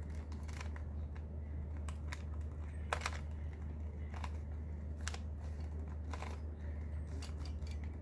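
A 3x3 Rubik's Cube being twisted by hand: the layers turn with sharp plastic clicks at an uneven pace, roughly one a second. A steady low hum runs underneath.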